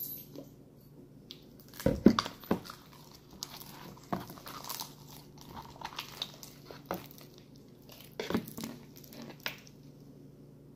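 Sticky clear-glue slime being kneaded and pulled by hand, with irregular wet smacks, clicks and squelches as it sticks and pulls away.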